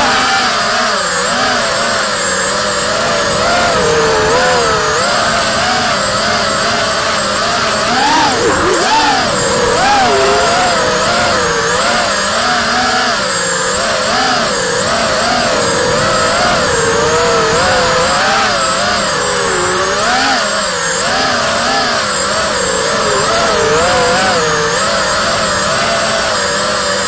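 Racing quadcopter's four brushless motors (Emax RS2205 2300 kV) spinning three-blade 5-inch props in flight: a buzzing whine of several tones that rises and falls constantly with the throttle.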